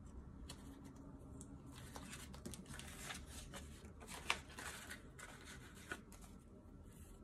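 Paper banknotes and clear plastic binder pouches rustling and crinkling faintly as cash is handled and slid into a pouch, with one sharp click a little past four seconds in.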